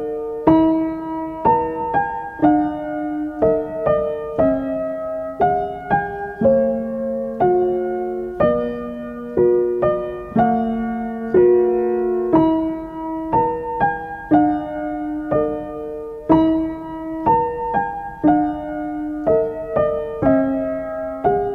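Background piano music: a slow, gentle melody of single notes and soft chords, a new note struck about every second.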